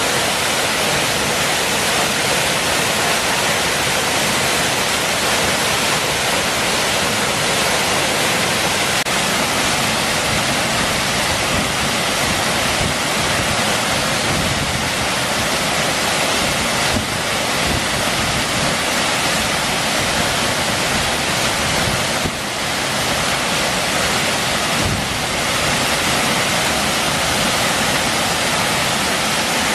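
A waterfall pouring: a steady, dense rush of falling water.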